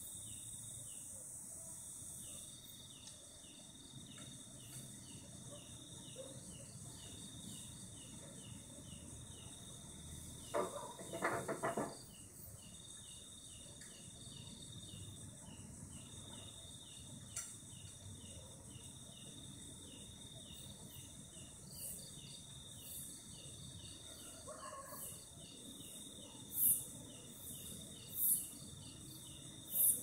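Cicada and night insects calling: a steady, fast-pulsing high trill throughout, a loud buzzy burst about ten seconds in, and near the end loud, sharp, high-pitched chirps about a second and a half apart.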